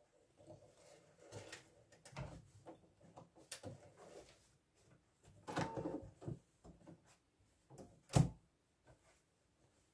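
Hands handling fabric and thread at an embroidery machine: soft rustling of the denim being smoothed in the hoop, with scattered small clicks and one sharper knock about eight seconds in. The machine itself is not running.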